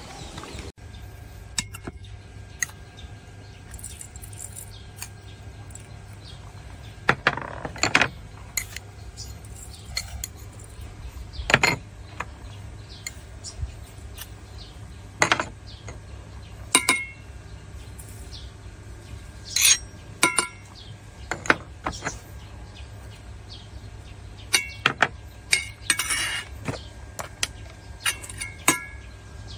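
Metal spoon clinking and tapping against a stainless-steel bowl and small seasoning dishes in scattered single strokes, some with a short ringing tone, over a steady low hum.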